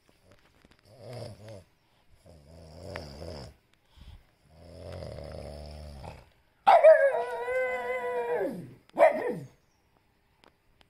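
Fawn pug making three low, rumbling grumbles, then a loud drawn-out howl about seven seconds in that holds for about two seconds and drops in pitch at its end, followed by a short second howl.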